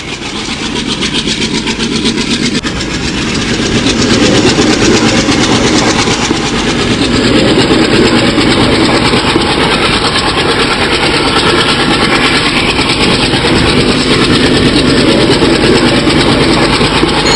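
ALCo diesel locomotive running, a dense, steady engine sound with a fast, even pulse, growing louder over the first few seconds and then holding.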